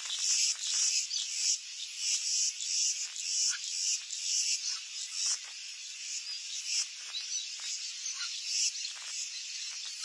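A chorus of insects shrilling in rhythmic pulses about twice a second, a little weaker in the second half, with a few faint bird chirps.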